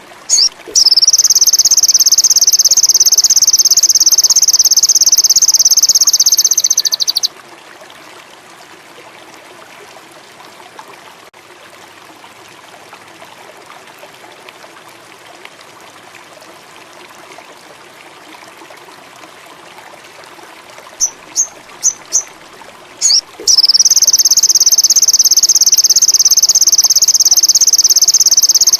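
Sogon indigo songbird singing: a few short high chips, then a loud, high, very rapid trill held for about six seconds. A long gap with only a faint steady hiss follows, and the same chips and trill come again about twenty-one seconds in.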